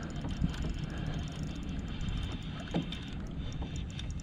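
A steady low rumble of wind and water around a fishing kayak on open water, with a few faint clicks.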